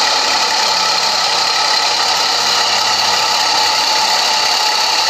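New Holland 3230 tractor's diesel engine running steadily as it pulls a rotary tiller, an even, unbroken drone.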